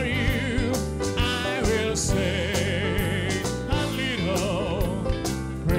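Live band music, an instrumental passage with drum hits under a lead melody played with vibrato.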